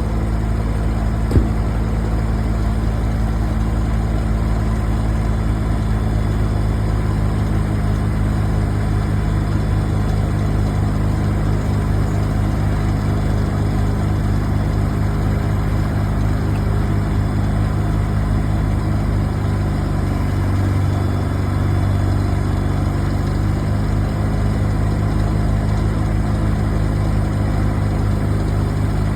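A large engine idling steadily, with a single sharp click about a second and a half in.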